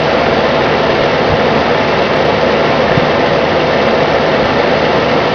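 Bionaire electric fan heater running on its hot setting: a steady whoosh of the blower with a low hum.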